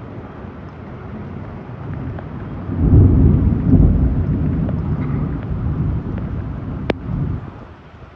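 Thunder rumbling over heavy rain: a low rolling rumble swells about three seconds in, stays loud for several seconds, then fades, with one sharp click near the end of it.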